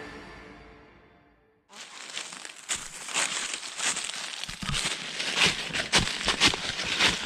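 Guitar music fading out at the start, then dry leaves and brush crunching and crackling with irregular sharp snaps.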